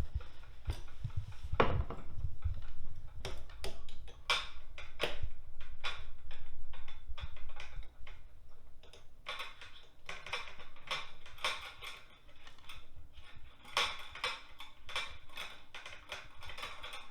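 Irregular clicks, taps and clinks of small metal and plastic drain parts being handled and tightened under a bathroom sink while a pop-up drain's plunger rod and pivot arm are fitted, some strokes in quick clusters.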